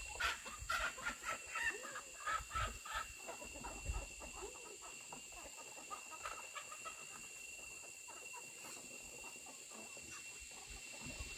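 Chickens clucking, a quick run of short calls that thins out by about seven seconds in, over a steady high-pitched whine.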